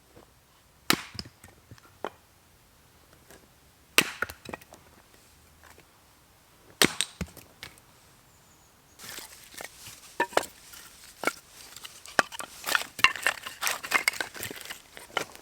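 Firewood sticks being handled and broken: three sharp wooden cracks a few seconds apart, then from about nine seconds in a busy stretch of smaller snaps and clatter.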